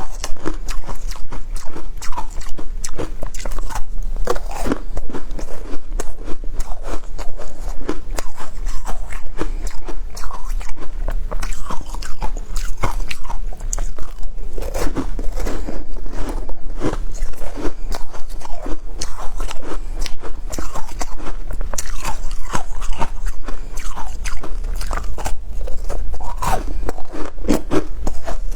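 Shaved ice being bitten and chewed, a continuous run of crisp crunches.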